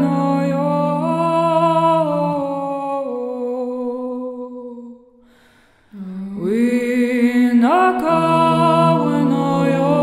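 Slow, meditative music: a wordless voice holds long notes and glides between them over a steady low drone. It fades out about five seconds in, leaves a second of near silence, and then comes back with an upward slide.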